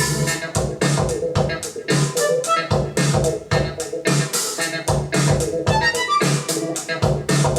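Music with a steady beat played back through Mission M71 bookshelf speakers driven by an NAD C740 amplifier.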